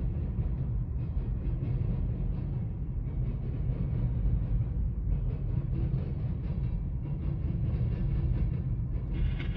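Empty covered hopper cars of a freight train rolling past: a steady low rumble of steel wheels on the rails.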